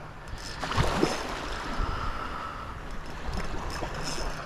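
Shallow seawater sloshing and lapping around the wading angler, with a short louder splash about a second in.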